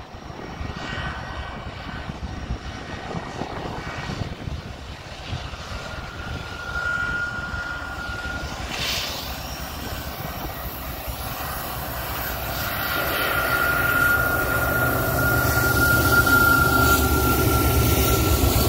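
BNSF diesel freight locomotives working hard up the grade, their engine drone and a high steady whine growing louder as the units approach and pass close by. Wind buffets the microphone throughout.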